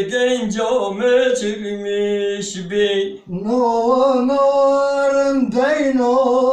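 A man singing unaccompanied, holding long notes with ornamented turns between them and a short break for breath about three seconds in.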